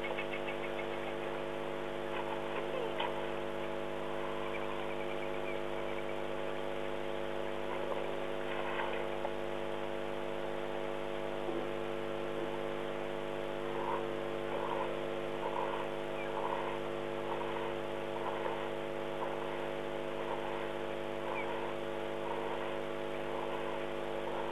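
Steady electrical hum running under the outdoor sound of a waterhole webcam. Over it come faint animal calls: a few chirps early on, then from about halfway a series of short repeated calls at roughly three every two seconds.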